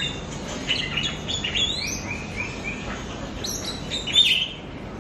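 Young oriental magpie-robin singing a varied run of short whistled notes and quick rising sweeps, with four short repeated notes about two seconds in and a louder note near the four-second mark. It is a young bird still learning its song.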